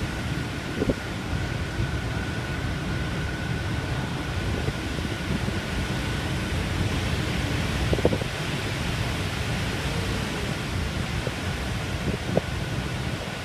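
Typhoon wind blowing hard across the microphone: a steady rushing noise, with a faint steady whistle above it and three brief thumps, about a second in, about eight seconds in and near the end.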